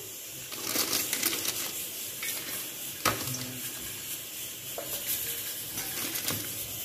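Glass sugar jar and other containers being moved and set down in a plastic basket tray, with a plastic sheet liner rustling and a few light knocks, the sharpest about three seconds in.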